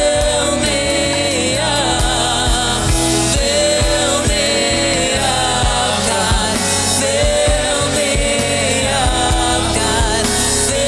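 Gospel worship song: a sung melody over band accompaniment with a steady drum beat.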